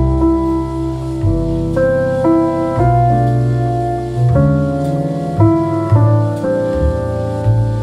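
Background piano music: a melody of notes changing about every half second over held low notes.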